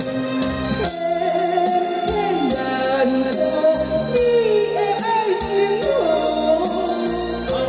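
A man and a woman singing a duet into microphones, amplified over backing music with a steady beat.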